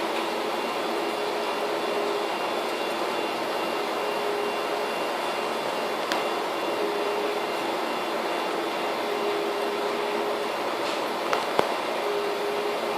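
Strong typhoon wind rushing steadily, with a faint whistle that comes and goes. A sharp knock about halfway through and two more near the end.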